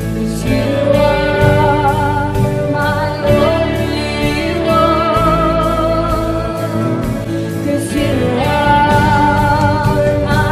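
Worship song with a singer holding long, wavering notes over instrumental accompaniment and a steady beat.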